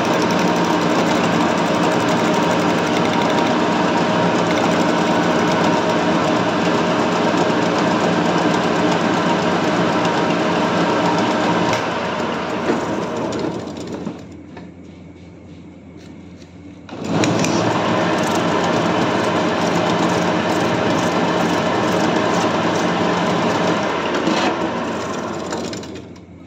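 Metal lathe running steadily while turning a small fibre part. About halfway through it is switched off and winds down over a couple of seconds. It is restarted a few seconds later, runs again, and winds down once more near the end.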